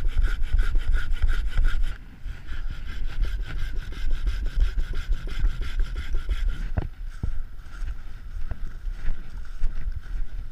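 Pocket saw cutting through wood in quick, even back-and-forth strokes, with a couple of sharp knocks about two-thirds of the way through.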